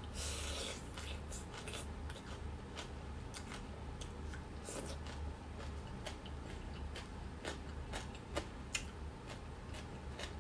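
Close-up eating sounds: a crunchy bite of fresh greens in the first second, then steady chewing with many short crisp crunches and clicks.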